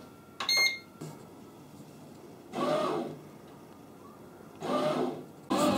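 Redmond RBM-M1902 bread machine: a short electronic beep as the start button is pressed, then its kneading motor turns the paddle in two brief runs a couple of seconds apart as the kneading cycle begins. Near the end a louder steady sound starts.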